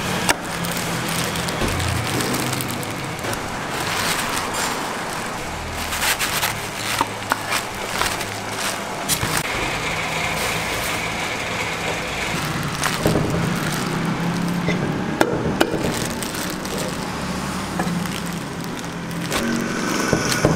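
Cleaver chopping through roast chicken on a wooden chopping block: irregular sharp knocks over a steady low hum.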